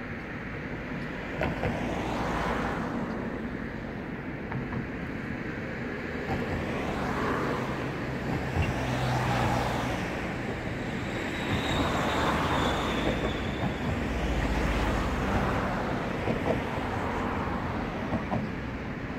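Vehicles passing one after another, each a rising and falling rush of noise over a steady traffic background, with a few sharp clicks and a brief high whine near the middle.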